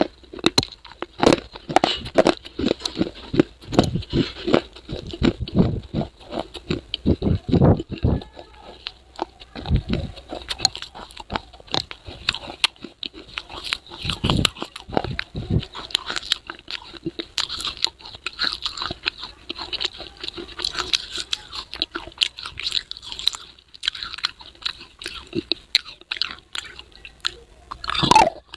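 A person biting into and chewing pieces of edible clay up close. There are many sharp crunches, densest in the first third and thinning later.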